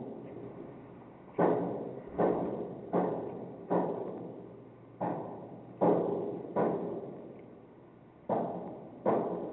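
Repeated heavy banging from workers repairing a burst pipe in the basement: about nine strikes in uneven groups of two or three, each ringing on after the hit.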